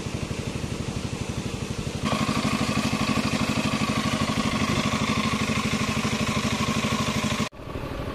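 Engine-driven water pump running steadily as it drains the pond, with a fast, even pulse. It gets louder about two seconds in and cuts off abruptly near the end.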